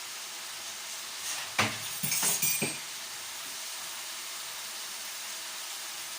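Spiced onion and garlic sizzling steadily in olive oil in a cooking pot, with a few sharp clinks and knocks of a utensil or container against the pot between about one and a half and two and a half seconds in.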